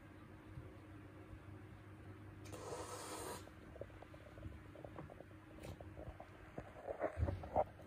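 A cat hissing once for about a second, a warning hiss at a new kitten. Near the end come a few soft knocks and taps.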